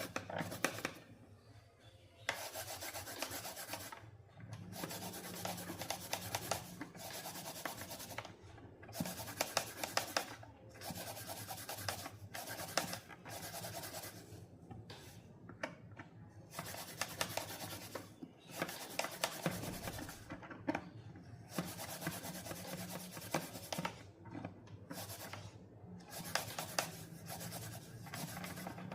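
Repeated scraping and rubbing on a portable Bluetooth speaker being worked on by hand during repair, in spells of a second or two with short pauses between.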